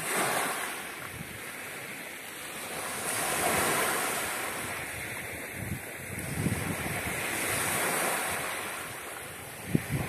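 Small Black Sea waves washing up onto a sand-and-pebble beach and drawing back, the wash swelling and fading about three times.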